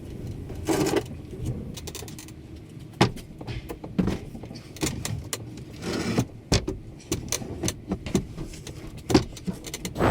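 Irregular knocks, clicks and light clatter of things being handled and set in place, with sharper knocks about three seconds in and near the end.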